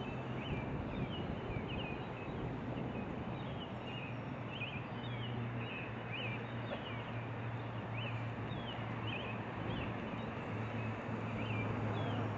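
Small birds chirping, short high chirps about once a second, over a steady rushing background noise and a low steady hum.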